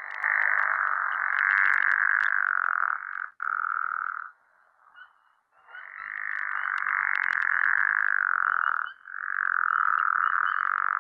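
Pickerel frog calling: a low, snore-like croak drawn out over several seconds, repeated in a series of long snores with brief gaps between them.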